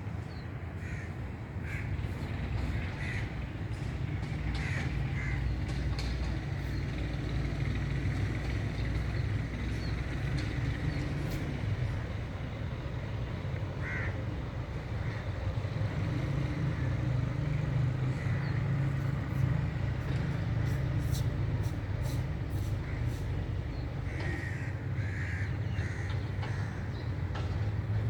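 Birds calling, short calls scattered throughout and bunched near the start and again near the end, over a steady low rumble.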